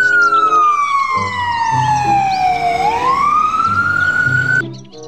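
Ambulance siren on a slow wail: one long falling sweep for about three seconds, then rising again, cutting off suddenly near the end.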